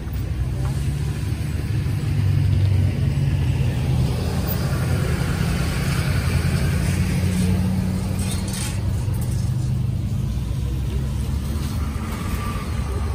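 Pickup truck engines running at low speed with a steady low rumble, as trucks roll slowly by, one driving close past midway.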